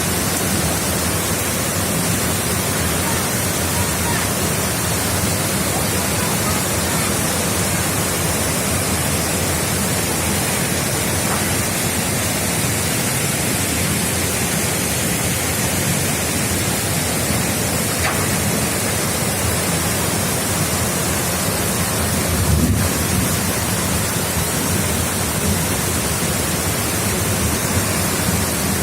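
Waterfall swollen with floodwater, falling water making a loud, steady rush. A brief low thump comes about three-quarters of the way through.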